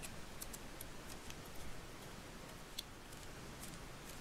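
Faint scattered light clicks and soft handling noises from hands working Play-Doh into a plastic cookie-cutter mold and lifting the plastic cutter out.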